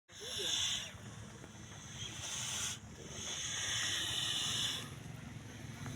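A cow with nasal polyps from nasal schistosomiasis breathing noisily through its narrowed nostrils: loud hissing, snoring breaths, one after another, each lasting from half a second to about two seconds.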